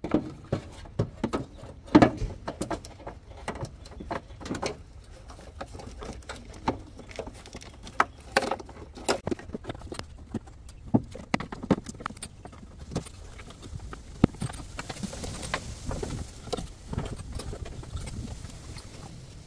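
Irregular clicks and knocks of plastic parts being handled as an air filter element, its housing and the ribbed intake hose are fitted back in an engine bay; the loudest knock comes about two seconds in. The engine is not running.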